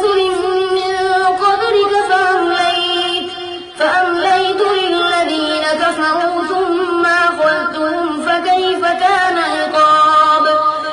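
A high male voice chanting in long, ornamented held notes in the melodic style of Quran recitation, with a short break for breath about four seconds in.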